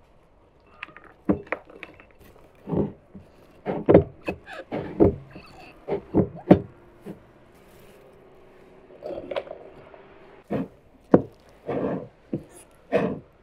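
Handfuls of cut green beans dropped into glass jars and pressed down by hand: irregular soft thuds and rustles, about a dozen, with a quieter stretch in the middle.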